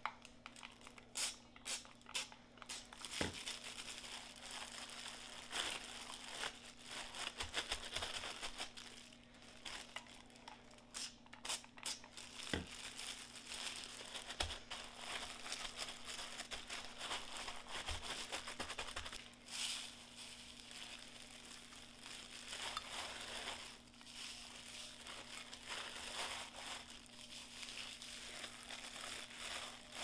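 Crinkling and rustling with scattered clicks, like packaging being handled, over a steady low hum.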